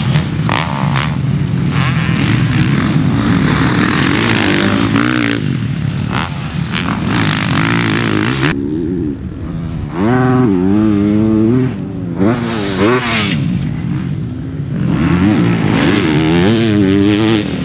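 Motocross bike engines revving hard, their pitch repeatedly climbing and dropping with throttle and gear changes. About eight and a half seconds in, the hissy top of the sound cuts off abruptly and clear rising and falling revs take over.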